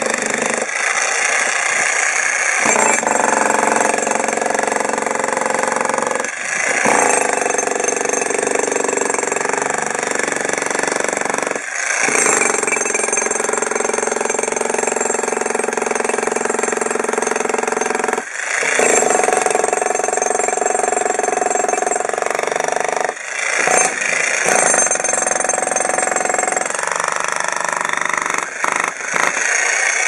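Arksen 1500 W electric demolition hammer (jackhammer) running steadily with its chisel bit down in a concrete slab, breaking it up. It cuts out briefly about every five to six seconds, then carries on.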